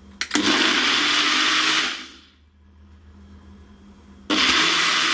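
Personal bullet-style blender motor running in two pulses, blending fruit with coconut milk into a purée. A click, then a run of about a second and a half that winds down, and a second run starting sharply about four seconds in.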